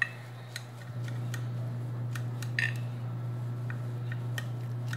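A metal knife cutting a baked egg dish inside a glass baking dish, giving scattered light clicks and taps as the blade meets the glass. A steady low hum runs underneath and grows slightly louder about a second in.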